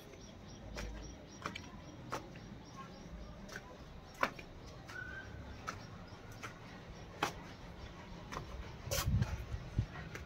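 Footsteps on a gritty, sandy floor with scattered small clicks and knocks, the loudest a cluster of heavier thumps about nine seconds in.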